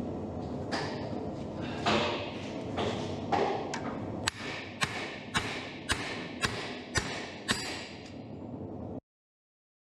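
Hammer blows on a blacksmith's handled top tool pressing into a red-hot steel bar on the anvil. A few softer knocks come first, then about four seconds in, seven sharp ringing strikes follow at an even pace of about two a second over a steady rushing background noise.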